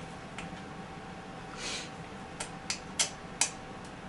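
A handful of sharp, separate light clicks, most of them in the second half, with a brief soft rustle: a zip tie being worked through the number plate and pulled tight.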